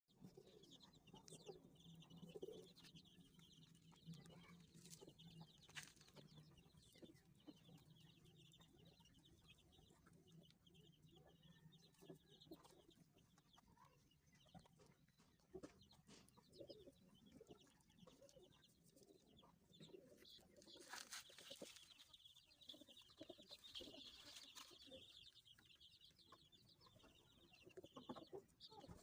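Faint, continuous peeping of a group of Indian game-fowl (Aseel-type) chicks, with a low steady hum under it for the first several seconds.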